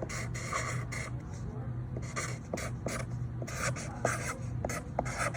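Handwriting: a pen scratching across a surface in short, irregular strokes.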